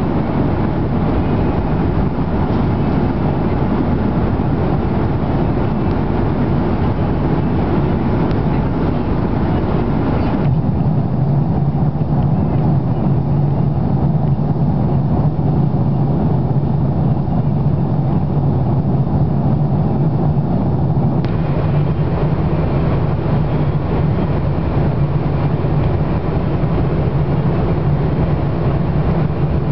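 Airliner cabin noise in the rear of an Airbus A340-600 in flight: a steady rush of airflow and engine drone. About a third of the way in the sound cuts abruptly to a duller rumble with a strong low hum, then cuts back to the brighter rush near two-thirds of the way through.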